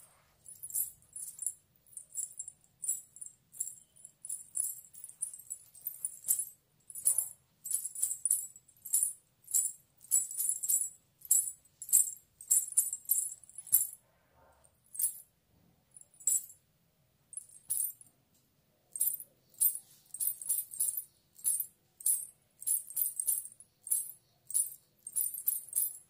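Silver anklets and bridal toe rings hung with small ghungroo bells jingling as the bare feet shift and step. The jingles come in short bursts, about one or two a second, with a brief pause about halfway through.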